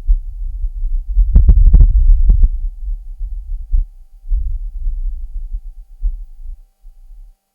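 Wind on Mars recorded by the Perseverance rover's microphone: a low, throbbing rumble as a brief gust buffets the microphone, with a few sharper knocks between about one and a half and two and a half seconds in, dying away near the end.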